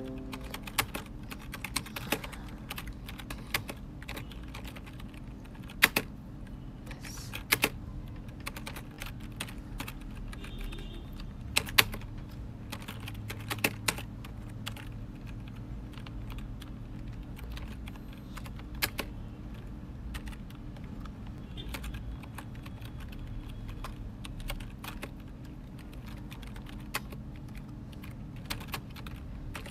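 Typing on a computer keyboard: irregular key clicks with now and then a louder strike, over a steady low hum.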